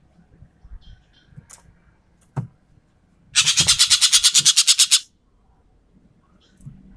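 Sumatran ekek keling bird giving a loud, harsh rattling call of about eleven rapid even notes a second, lasting about a second and a half and starting a little past three seconds in. A few faint short calls and a sharp click come before it.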